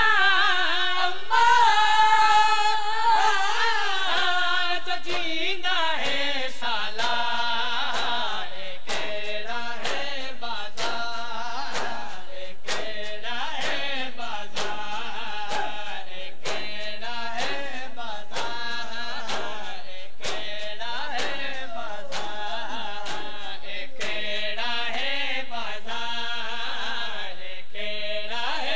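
A Punjabi nauha, a Shia lament, sung by a male reciter. From about six seconds in it is joined by the mourners' matam: hands slapping on chests in a steady beat about twice a second, keeping time with the lament.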